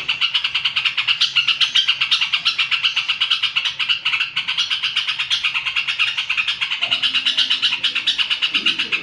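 Caged sooty-headed bulbul (cucak trucuk) singing over a loud, continuous, fast and even pulsing chirr.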